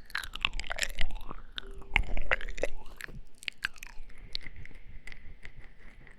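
Close-miked ASMR mouth sounds: quick wet clicks, smacks and kissing noises, dense for the first few seconds and sparser after.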